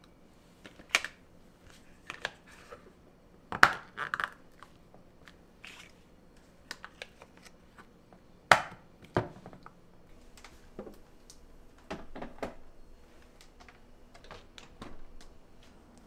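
Plastic food tubs and lids clicking and knocking as lids are pressed on and snapped shut. It is a string of sharp clicks, with the two loudest snaps about three and a half and eight and a half seconds in, and lighter taps after them.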